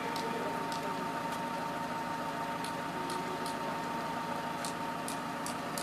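A vehicle engine idling as a steady hum with a thin, steady whine, with a few faint ticks over it.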